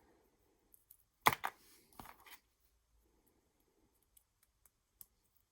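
Plastic battery connector being handled and pushed into a wiring lead: a loud sharp double click about a second in, then a few fainter clicks and ticks.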